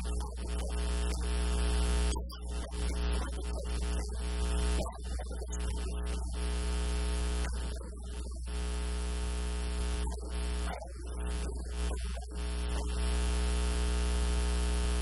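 Steady electrical mains hum and buzz, a low drone with a stack of evenly spaced overtones, and a hiss above it that cuts in and out.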